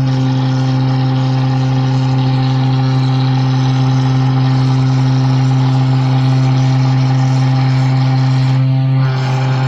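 CNC router spindle milling through 4 mm aluminium sheet in a single pass: a steady machine hum and whine under harsh, hissing cutting noise. The cutting noise drops out for a moment near the end, then carries on.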